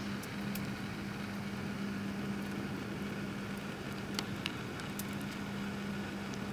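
A steady mechanical hum, like an idling engine, holding one low pitch over a constant hiss, with a few faint ticks scattered through it.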